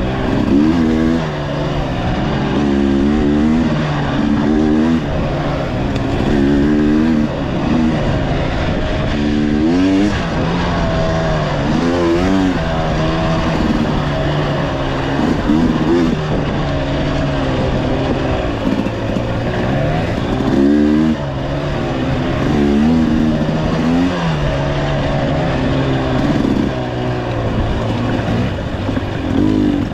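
Off-road motorcycle engine revving up and down over and over as the throttle is worked through a rocky, rough trail section, the pitch rising and falling every second or two.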